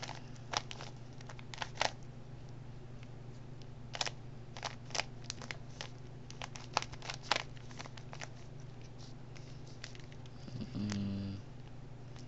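Plastic Rubik's cube being turned by hand, its layers clicking in irregular sharp clicks, sometimes in quick runs of two or three.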